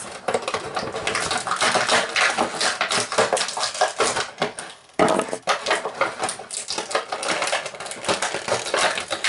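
Rapid crinkling and clattering of plastic toy packaging as a Littlest Pet Shop Hungry Pets figure is worked free of its can, with a short break about five seconds in.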